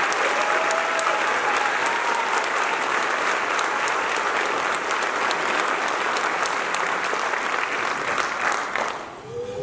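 Audience applauding a recipient of an award, a dense crowd of hand claps that dies away near the end.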